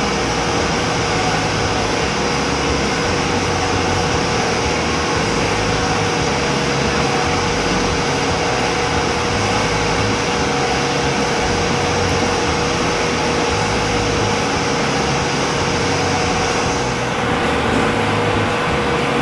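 Steady machine noise with a constant hum; its upper hiss drops off about seventeen seconds in.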